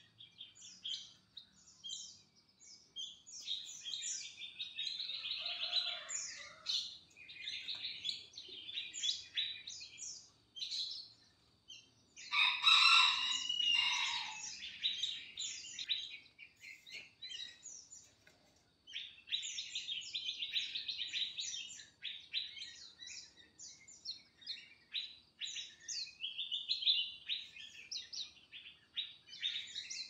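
Many small aviary birds chirping and twittering, a busy run of quick, high calls with short pauses. About twelve seconds in there is a louder, fuller bout of calls lasting a couple of seconds.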